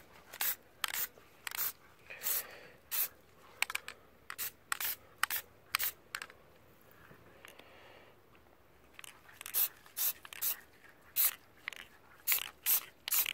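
Aerosol can of Plasti Dip rubber coating spraying in many short hissing bursts, a light coat at a time, with a pause of about three seconds around the middle.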